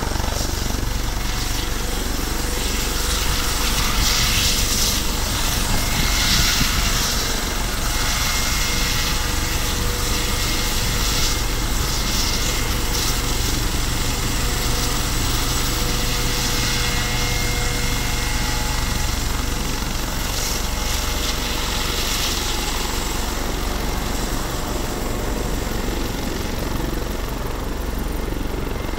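Eurocopter AS365 Dauphin helicopter running on the ground with rotors turning as it taxis: steady twin-turbine whine over the rotor and Fenestron tail-rotor noise.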